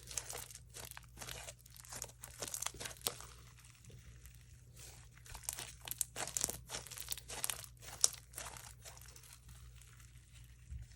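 Hands squishing and stretching sticky slime, making irregular crackles and sticky pops in quick clusters, with quieter gaps around four seconds in and near the end. A faint steady low hum lies underneath.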